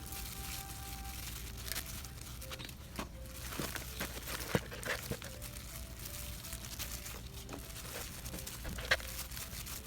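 Soft background music with short, clear notes, over scattered crinkling and rustling and a few sharp clicks, the loudest about four and a half seconds in and again near the end.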